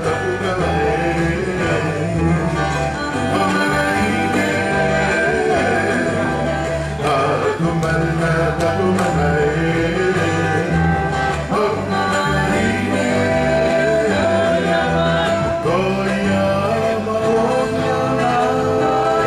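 Music: voices singing to guitar accompaniment with a steady bass line, playing without a break.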